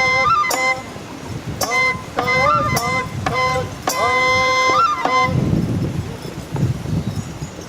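Traditional Japanese shrine-dance music: a bamboo flute plays a bending melody over sharp percussion strikes. The music breaks off about five seconds in, leaving low rustling noise.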